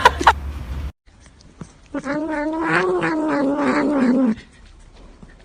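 A domestic cat yowling: one long drawn-out call of about two seconds that rises slightly and falls away at the end.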